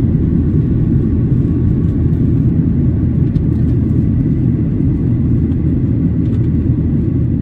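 Cabin noise of a Boeing 737-900 in flight, heard at a window seat beside the wing: a loud, steady low rumble of its CFM56-7B engines and the airflow past the fuselage.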